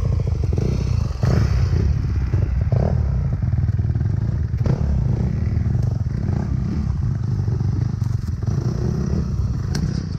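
Dirt bike engine running at low, uneven revs on a rocky trail, with scattered knocks and stones clattering.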